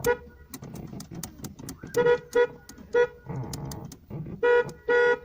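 Car horn giving about six short toots as the horn pad is pressed while the steering wheel is turned, with the last toot a little longer and sharp clicks of the pad in between. It is a test of the horn contacts, which still have occasional dead spots.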